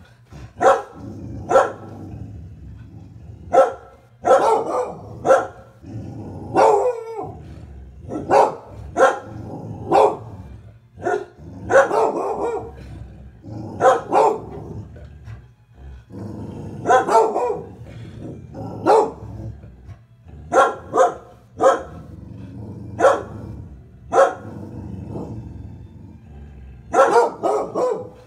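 Dogs barking repeatedly at the window, sharp single barks coming in irregular runs of two or three with short gaps between.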